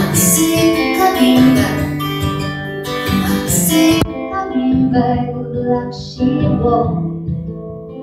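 Acoustic guitar strummed in a live song, with a woman singing along.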